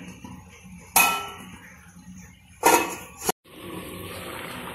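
Stainless steel lid clanging onto a cooking pan as it is put on to cover the food: two sharp metallic clanks, about a second in and near three seconds, each with a short ring.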